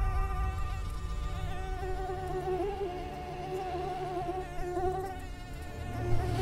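Mosquito whining, a thin steady buzz that wavers slightly in pitch, over a low rumble.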